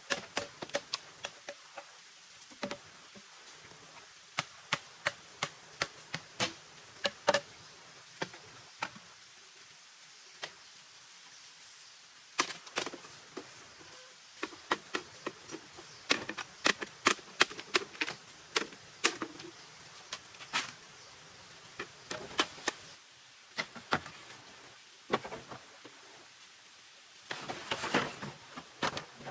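Hand work on wood: a long run of sharp, irregular knocks and clicks in clusters with pauses between, the densest flurry about two-thirds of the way through, and a thicker scraping, rustling patch near the end.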